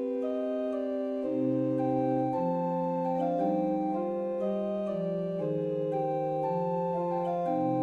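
Background music: slow sustained organ-like keyboard chords, the notes changing every second or so.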